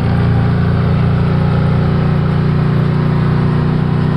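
Can-Am Maverick Sport XRC side-by-side's Rotax V-twin engine running steadily under way on a dirt trail, a loud, even drone with no change in pitch.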